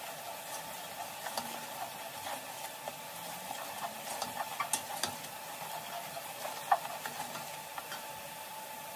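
A plastic spatula stirring a wet mix of shredded vegetables and spices in a stainless steel stockpot, with soft scrapes and scattered light clicks against the pot. The sharpest click comes near the end.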